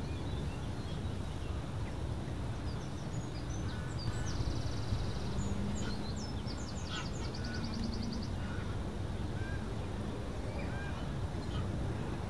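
Greylag geese calling in flight as a skein passes over, with a steady low rumble underneath.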